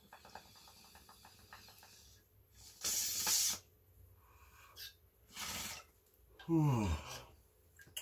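Water bubbling in a glass bong as smoke is drawn through it, a quick faint crackle of small bubbles for about two seconds. Then a loud breathy exhale of the smoke about three seconds in, a softer breath, and near the end a voiced exhale falling in pitch.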